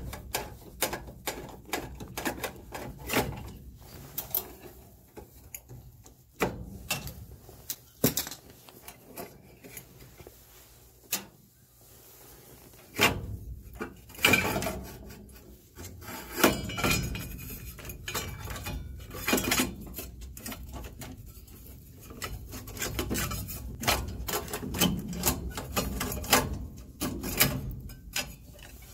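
Metal clicks, rubbing and knocks as a screwdriver backs out screws and then a furnace draft inducer motor and its sheet-metal blower housing are handled and worked loose. Quick runs of clicks come first, then scraping and clattering of metal parts.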